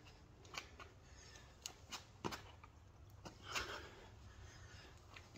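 Faint, irregular taps of running shoes on asphalt as a man jogs in place, with a longer scuffing sound about three and a half seconds in as he drops into a burpee.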